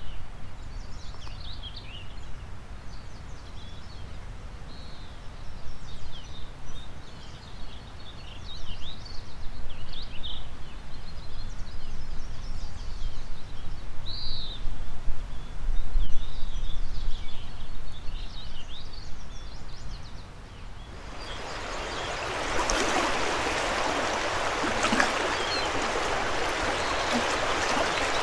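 Several birds chirping and warbling over a gusty low rumble of wind. About three quarters of the way through, the sound changes suddenly to the steady rush of a fast mountain river.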